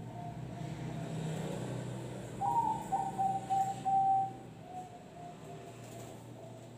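Zebra dove (perkutut) cooing: a higher opening note about two and a half seconds in, then a quick run of notes and a held note, trailing off into softer notes. This is the song style its keeper calls 'noklak nekung'. A low steady hum runs underneath.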